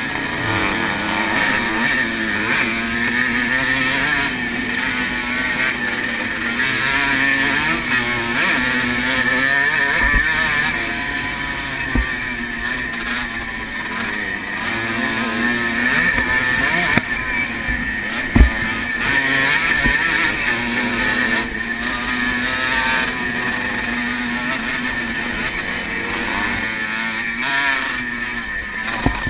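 1980 Honda CR125R's single-cylinder two-stroke engine at race speed, revving up and down through gears and corners. A few hard knocks come through, the loudest about two-thirds of the way in.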